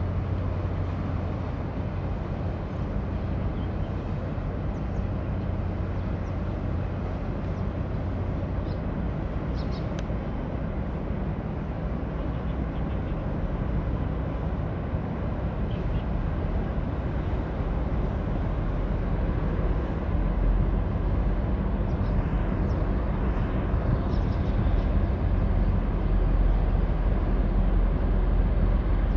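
Large container ship passing close by, its engine running with a steady low rumble. The deepest part of the rumble grows louder over the last third.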